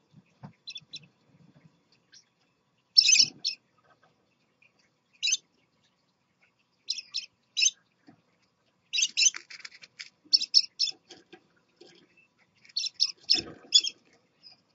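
Scarlet-chested parakeets chirping in a cage: short, high chirps in quick clusters of two to four, with a busier run a little past the middle. Two soft low thumps from birds moving on the perches come in about three seconds in and again near the end.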